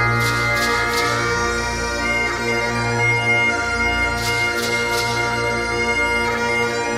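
Bagpipe music: pipes playing over a steady held drone, with short hissy swells about half a second in, around four seconds in, and again just after the end.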